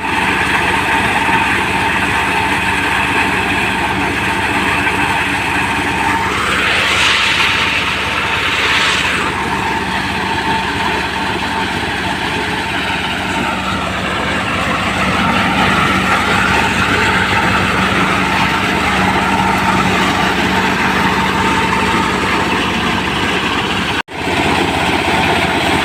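Engine-driven corn sheller machine running steadily, with two brief louder rushes of noise a couple of seconds apart.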